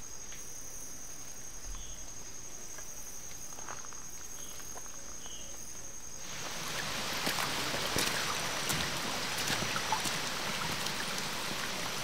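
A rainforest insect's steady, high-pitched trill at one unchanging pitch. About six seconds in, a steady rush of water comes up and covers it, with a few light ticks.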